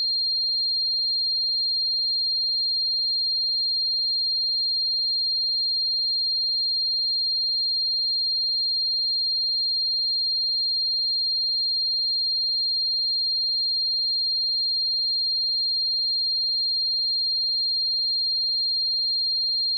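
A pure 4206 Hz sine-wave test tone, one steady high-pitched pitch held unchanged at constant level.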